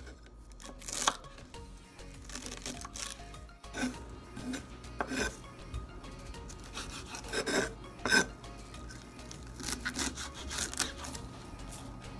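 A small kitchen knife cutting mushrooms into small pieces, in irregular short cutting and scraping strokes, with a sharper click about a second in and a couple more around eight seconds in.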